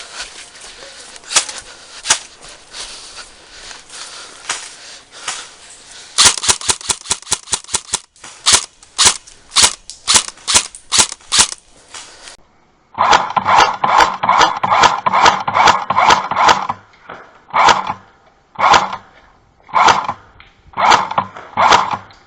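Airsoft guns firing: scattered single shots, then a quicker run of single shots about two or three a second, then short repeated bursts of rapid automatic fire, the burst section sounding duller and with less treble than the part before.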